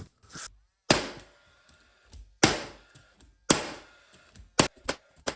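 Hammer blows on wood: three loud, sharp strikes about a second apart, then lighter, quicker knocks near the end.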